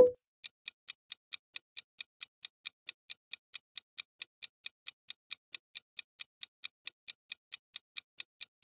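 Clock-tick sound effect of a quiz countdown timer, ticking evenly at about three ticks a second. It begins right after a single short, sharp pop.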